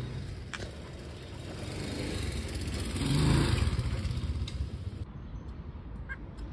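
A car driving past, its engine and tyre noise swelling to a peak about halfway through and then fading away.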